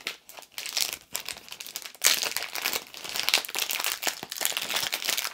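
Clear plastic shrink-wrap crinkling as it is pulled off a small pack of cards, with a steady crackle that gets louder about two seconds in.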